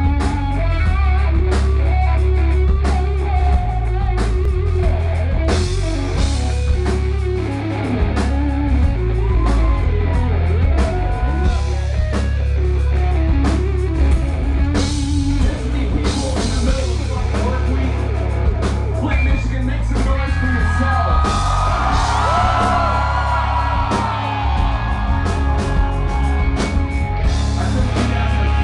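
Alternative metal band playing live: distorted electric guitars, bass and drum kit, with a male singer's voice over them.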